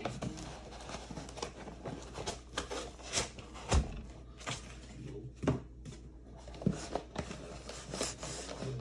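Cardboard packaging being handled: box flaps opened and a cardboard insert lifted out, making irregular scrapes, rustles and light knocks.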